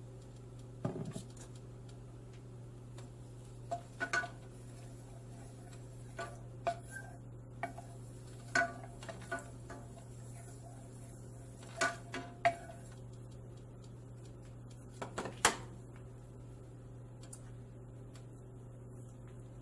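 Wooden spatula knocking and scraping against a stainless steel pan as it spreads cooking oil: scattered clinks in small clusters over a steady low hum.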